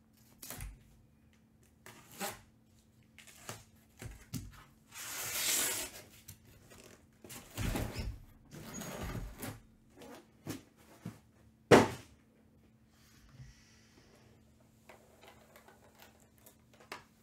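Cardboard shipping case being opened by hand: a knife slitting the packing tape in a long rasping scrape, cardboard flaps and sides scraping and rustling, and one sharp knock about two-thirds of the way through, the loudest sound, followed by lighter scuffs of boxes being handled.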